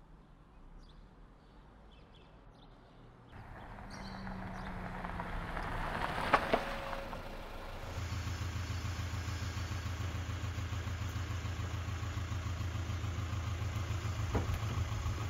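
Volkswagen TDI diesel car idling with a steady low, pulsing rumble that sets in about halfway through. Two sharp clicks come shortly before it, and a single click near the end as the car door is opened.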